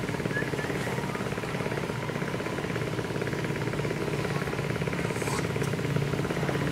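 A motor running steadily, with a fast, even pulsing beat.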